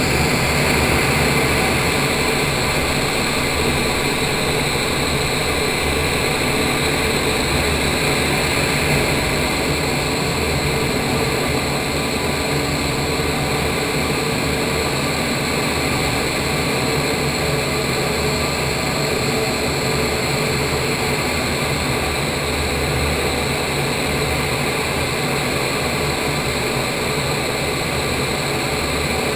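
Indoor vertical wind tunnel running, heard from inside the flight chamber: a loud, steady rush of air with a faint steady whine mixed in.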